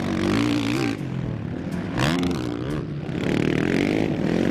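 Motorcycle engine revving, its pitch swelling up and falling back several times over a steady running note.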